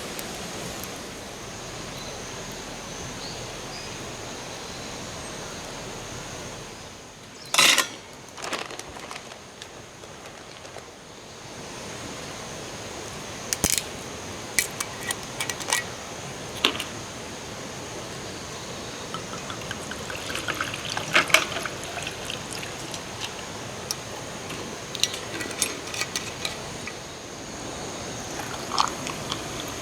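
Steady rush of flowing stream water, with scattered clicks and knocks throughout; the loudest knock comes about eight seconds in, and the rush drops for a few seconds after it.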